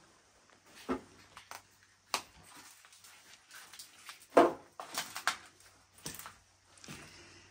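Scattered knocks, clicks and scuffs of someone moving through a cluttered, debris-strewn room and brushing against things, the loudest a single thump about four and a half seconds in, with a faint low hum underneath.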